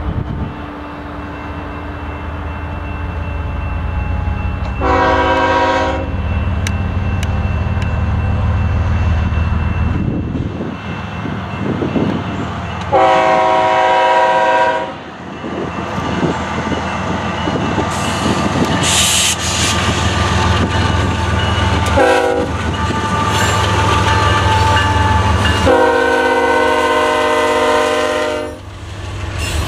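Canadian Pacific diesel freight locomotives rumbling steadily and sounding a multi-note air horn: a blast about five seconds in, a longer one around thirteen seconds, a short toot near twenty-two seconds and a long blast near the end.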